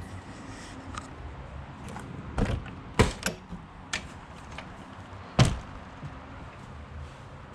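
Travel trailer doors and cupboards being opened and shut: several sharp knocks and thuds, the loudest about three seconds in and again about five and a half seconds in, over a low steady background.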